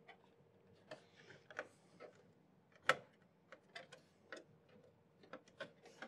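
Faint, irregular small clicks and taps as a motherboard is lined up on its standoffs and screws are set into the metal PC case, with one sharper click about three seconds in.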